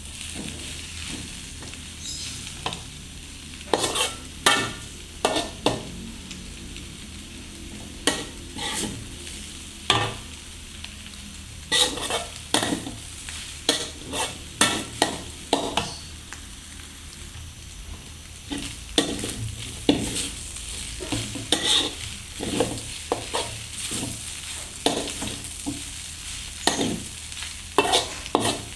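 Shrimp fried noodles sizzling in a pan while a spatula stirs and tosses them: a steady frying hiss, broken by frequent irregular scraping clicks of the utensil against the pan.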